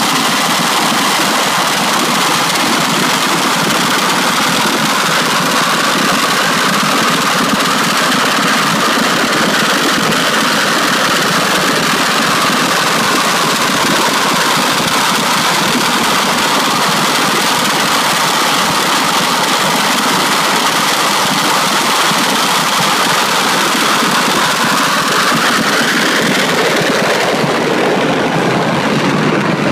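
The Turbonator's home-built twin gas-turbine jet engines running on the start line: a loud, steady jet rush with a whine that drifts in pitch. Near the end the whine rises sharply as the engines are throttled up and the car launches away.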